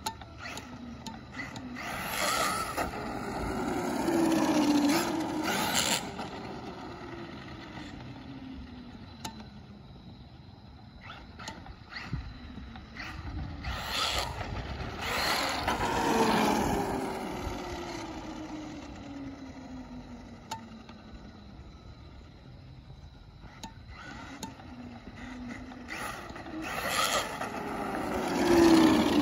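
Traxxas Maxx RC monster truck on 4S LiPo brushless power making three fast passes on wet pavement. Each time, the brushless motor's whine swells and then falls in pitch as it goes by, over the hiss of the tyres on the wet road. Its driveshafts are freshly greased, so there is no metal-on-metal screech.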